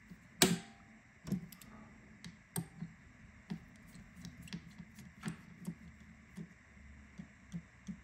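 Small hand tools clicking and tapping against a Samsung Galaxy A23 5G's plastic frame and screws during disassembly: one sharp click about half a second in, then a string of lighter, irregular clicks.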